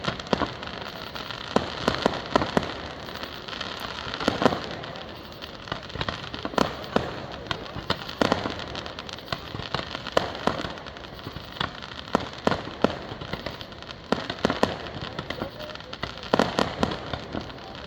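Fireworks going off: a steady run of sharp bangs and pops at irregular intervals, with a few louder bangs and short bunched volleys.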